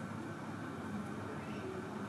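Low, steady background noise with a faint hum: room tone with no distinct event.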